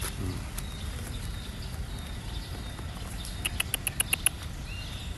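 A small animal gives a rapid run of sharp, high chirping clicks, about eight in a second, starting a little after three seconds in, over a low steady background rumble.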